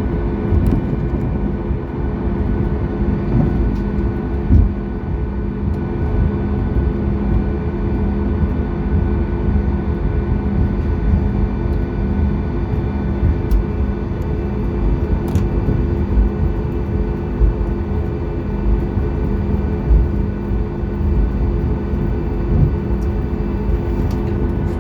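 Cabin sound of a Boeing 737 MAX 8 taxiing, its CFM LEAP-1B engines at low power: a steady hum made of several held tones over a low rumble, with a few brief thumps from the wheels rolling over the taxiway.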